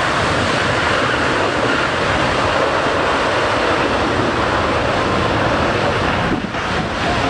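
Loud, steady jet noise from the C-17 Globemaster III's four turbofan engines, with a brief dip about six and a half seconds in.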